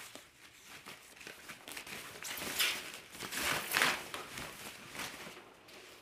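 Plastic wrapping bag rustling and crinkling in several irregular bursts as it is pulled off the stick vacuum's main unit.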